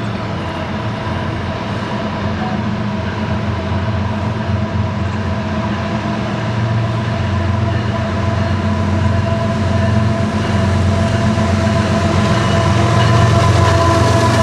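CSX freight train with diesel-electric locomotives passing, a steady low rumble growing gradually louder, with a steady high whine over it.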